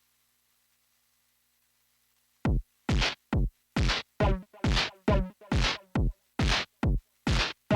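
Arturia MS-20 V software synthesizer playing a looped pattern of short percussive synth hits, each a fast downward pitch sweep like a synthesized kick drum. The hits start about two and a half seconds in and come in an uneven rhythm, a little over two a second.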